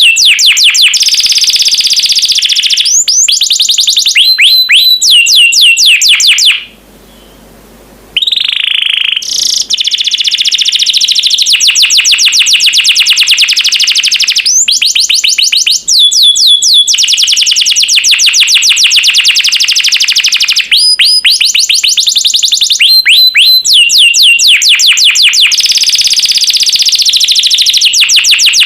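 Domestic canary singing a long, loud, high-pitched song of fast trills, each a rapid run of repeated notes, with rising whistled notes between them. The song breaks off for about a second and a half about seven seconds in, then carries on.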